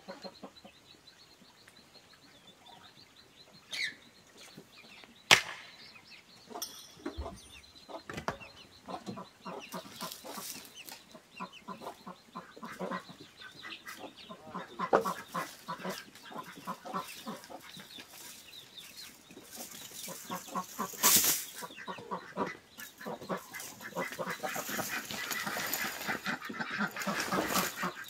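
Wire-mesh chicken-coop netting rattling and scraping as it is pulled up and handled, with two sharp knocks, one about five seconds in and one about two-thirds through. Chickens cluck in the background.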